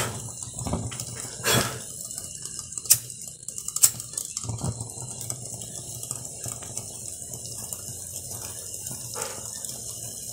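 A few sharp clicks and knocks in the first four seconds as a homemade aluminium-can alcohol stove is relit, then its ring of blue jets burning with a steady soft hiss.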